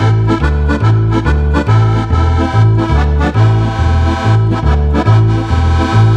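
Roland digital accordion playing a polka: a melody on the treble keys over a steady oom-pah accompaniment of bass notes alternating with chords, about two bass beats a second.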